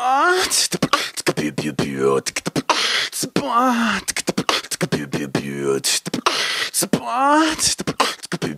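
A man beatboxing: a quick, steady stream of mouth-made drum clicks and hissing hi-hats, with short pitched vocal sounds that slide up and down a few times between the beats.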